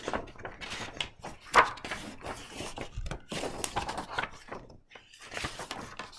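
Paper pages of a picture book rustling and flapping as the book is opened and leafed through, with scattered soft handling clicks and taps; the loudest rustle comes about a second and a half in.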